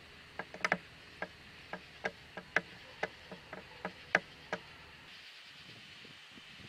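Steady high insect chorus of an evening, broken over the first four and a half seconds by about fifteen sharp, irregular clicks.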